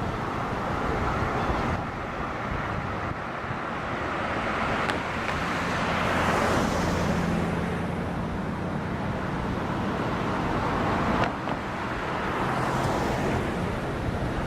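Road traffic crossing a bridge over steady wind noise. One vehicle's engine hum and tyre noise swell and fade through the middle, and another swells near the end. Two sharp clicks come about a third of the way in and again near the end of the first pass.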